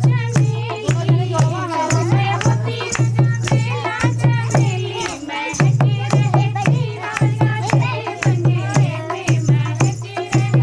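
Loud dance music with a steady deep beat, sharp rattling percussion and a wavering melody line. The beat drops out for about half a second near the middle.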